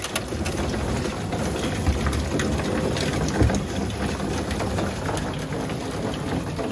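Steady rush and splash of hose water pouring from a metal rain-gutter downspout into the fill opening of a 275-gallon IBC tote, with a few knocks as the downspout is bent down by hand.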